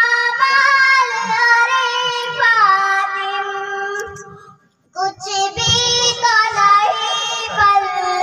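Girls singing a naat (Urdu devotional song) in unison into microphones, without instruments: long, held, ornamented notes. The singing stops briefly about halfway, then a new phrase begins.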